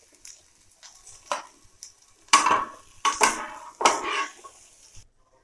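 Flat metal spatula scraping and scooping fried onion slices across a nonstick frying pan, in several separate scrapes about a second apart, the loudest two in the middle. The sound cuts off suddenly near the end.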